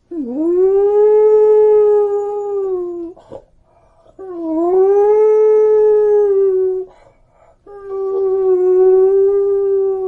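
A beagle howling: three long howls with short breaks between them. The first two scoop up in pitch at the start, and each is then held at a steady pitch before dropping off slightly at the end.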